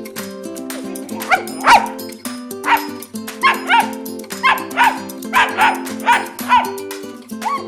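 A dog yipping in short high-pitched yelps, about a dozen of them coming every half second or so from a little over a second in, over background music with held notes.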